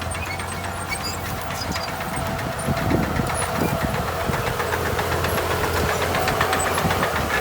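Heavy earthmoving machinery's diesel engine running steadily, with a constant whine over the engine hum and rapid clattering that builds in the middle.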